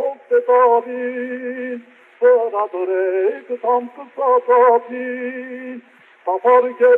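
A man singing a slow, ornamented melody with long held notes that waver in pitch, in phrases broken by two short pauses.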